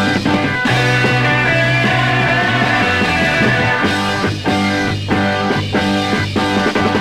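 Instrumental break of a 1960s psychedelic rock song: electric guitar over bass and drums, no singing.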